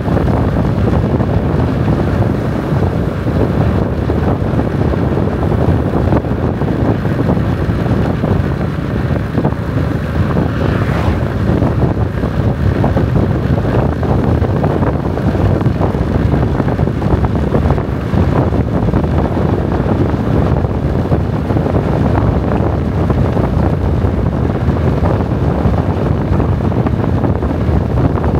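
Loud, steady wind noise buffeting the microphone, a dense low rumble.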